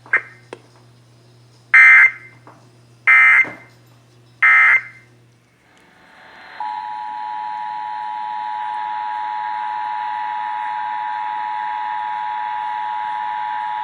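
Emergency Alert System tones: three short screeching bursts of SAME digital data about a second apart, the end-of-message code that closes a test. About six and a half seconds in, the steady two-tone EAS attention signal starts and holds.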